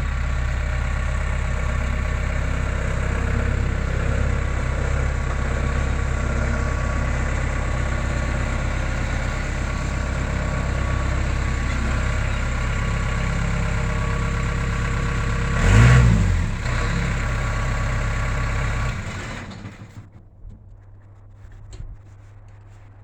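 Skid steer engine running steadily, with a brief louder surge about three quarters of the way through. Near the end the engine shuts off.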